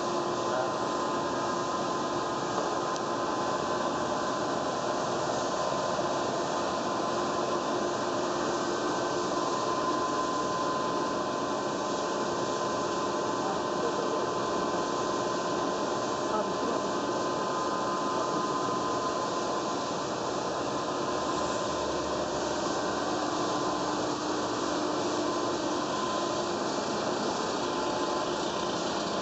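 BTA deep hole drilling machine running, a steady mechanical noise with a couple of faint held whining tones.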